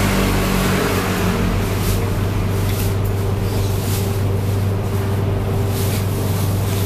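Steady low engine hum of road traffic, like a large vehicle idling close by, running evenly throughout. A few faint clicks, like metal chopsticks against a steel bowl, sit on top.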